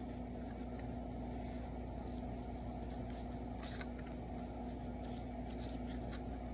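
Trading cards being handled, a few faint soft ticks as cards are slid and flipped, over a steady background hum with a constant low tone.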